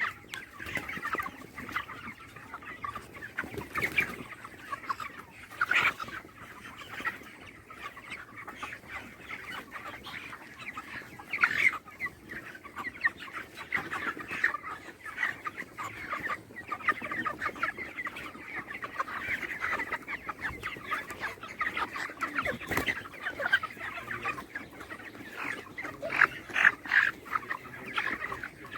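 A flock of broiler chickens clucking and chirping continuously, many birds calling over one another, with a few louder single calls standing out.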